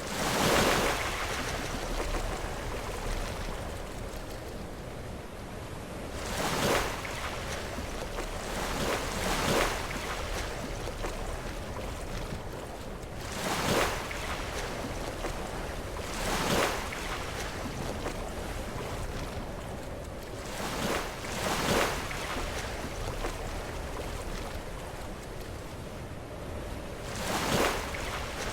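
Sea waves breaking against rocks: a steady wash of surf with about eight separate splashing surges at uneven intervals.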